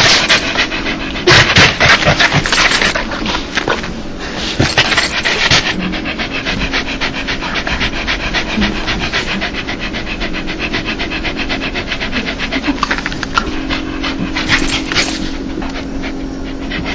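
A dog panting quickly and evenly, several breaths a second, louder for a couple of seconds about a second in and again around five seconds in. This is the happy, excited panting that owners call a dog's laugh.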